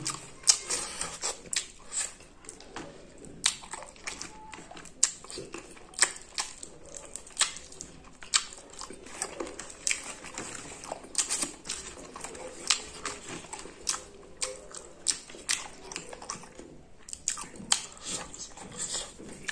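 Close-up eating sounds of a person eating rice and chicken curry by hand: wet chewing and lip smacking, with many irregular sharp mouth clicks.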